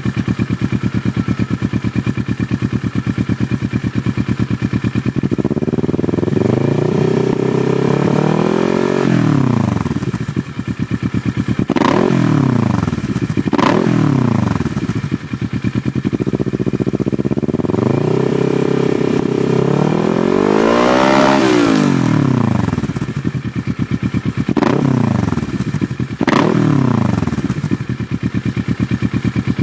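Kawasaki ER-6n parallel-twin engine through an Arrow slip-on silencer with its dB killer removed, idling and revved with the bike standing still. There are about seven revs: a few long ones that climb and fall, short sharp blips, and the highest one about two-thirds of the way through, before it settles back to idle near the end.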